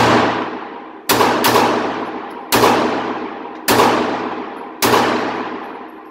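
Five pistol shots from a Glock 42 in .380: the first two come about a third of a second apart, the rest about a second apart. Each shot rings out in a long, echoing decay down the concrete indoor range.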